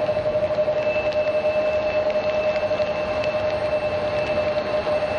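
Jet airliner engines running at a steady speed: a constant whine over an even rushing noise, with a fainter higher whine coming and going.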